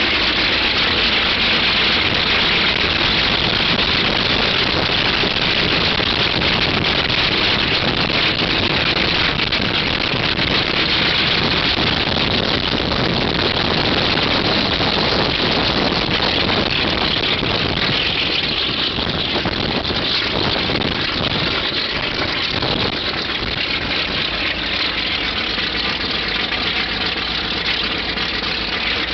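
Il-14T's Shvetsov ASh-82T fourteen-cylinder twin-row radial engine running steadily with its propeller turning, on its first ground run after restoration. It gets slightly quieter over the second half.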